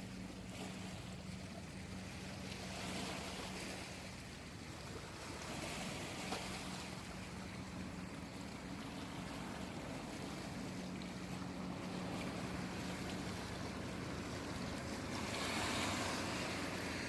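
Sea waves washing in, swelling in a few surges with the biggest near the end, over a faint low steady hum.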